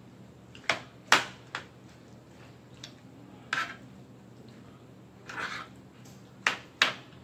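Metal fork and spoon clinking and scraping against a skillet while breaking up and mixing food. There are several sharp clicks, the loudest about a second in, and a short scrape about five and a half seconds in.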